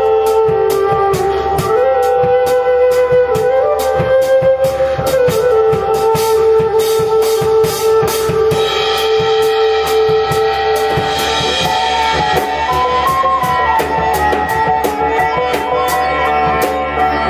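Live band music: a flute holding long, slowly shifting notes over a steady drum-kit beat, with a plucked string instrument and a low didgeridoo drone underneath.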